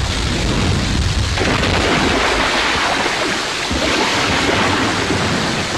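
Heavy rain pouring down in a steady hiss, with a deep rumble underneath for the first second and a half.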